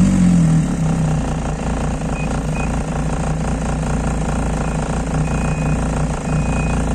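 Snowmobile engine opening up abruptly and then running hard at a steady pitch while the machine tries to climb an icy slope. Short, high beeps sound on and off from about two seconds in.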